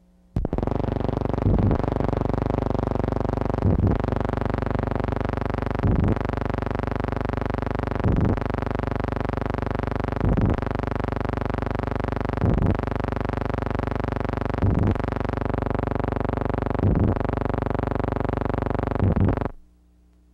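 A loud, steady buzzing drone with many overtones, swelling slightly about every two seconds, that cuts off suddenly near the end.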